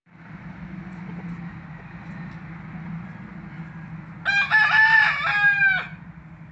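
A gamefowl rooster crows once, a single call of about a second and a half starting about four seconds in, over a steady low hum.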